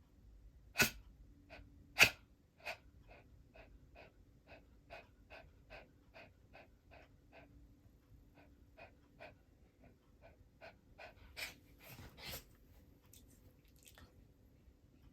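A toy poodle sneezing: two sharp sneezes about a second and two seconds in. A long run of short, evenly spaced nasal puffs follows, about three a second, and then two more sneezes near the end.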